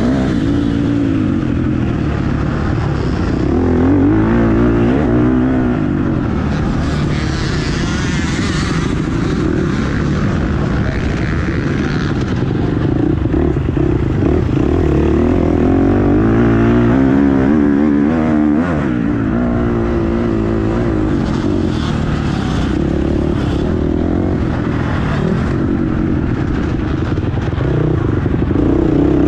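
Motocross bike engine ridden hard from the rider's seat, revving up on the straights and dropping back into the corners, its pitch rising and falling over and over.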